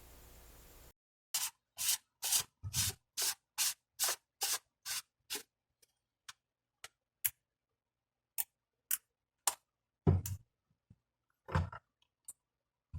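A run of short, sharp scraping clicks, about two to three a second for several seconds, then sparser clicks and a few heavier knocks near the end, typical of hand work on a small plastic part.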